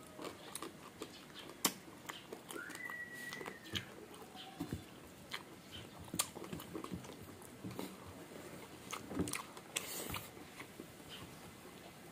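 Close-up eating sounds: chewing and crunching of crispy fried pork and sisig, with wet mouth smacks and fingers picking at rice and food, in scattered irregular clicks. A brief high tone is heard about three seconds in.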